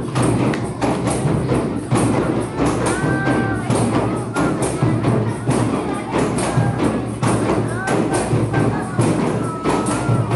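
Hand-drum ensemble of frame drums and congas playing a busy, steady rhythm for a qasidah, with brief voices over it.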